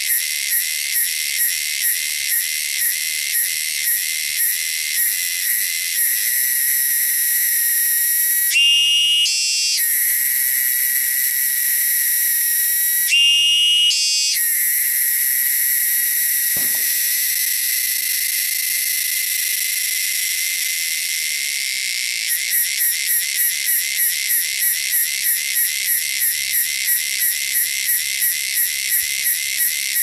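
Cicada song: a shrill, high buzz that first pulses in a steady rhythm, then runs as one continuous buzz for about fifteen seconds, then pulses again. Twice near the middle a brief, louder call with a rising pitch cuts in.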